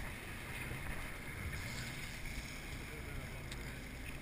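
Steady running drone of a 57-foot Bertram sportfishing boat's engines, with wind on the microphone and water rushing along the hull.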